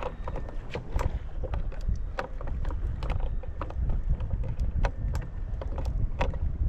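Wind buffeting the microphone as a steady low rumble, with irregular sharp knocks and slaps several times a second.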